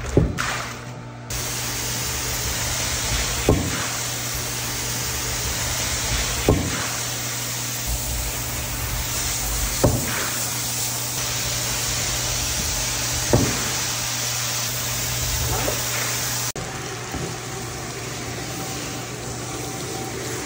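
Steady hissing rush of water spraying onto a rug, with a machine hum underneath and a sharp knock about every three seconds. Near the end it cuts off to a quieter steady hum with a faint whine.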